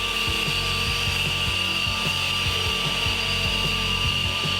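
Hot-air vinyl welding gun running steadily, its blower giving a continuous hiss with a high, even whine, as it is passed over a dressed weld seam to blend in its colour.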